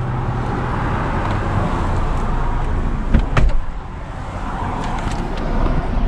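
Steady vehicle and traffic noise beside a road, with a sharp click of the van's door about three seconds in.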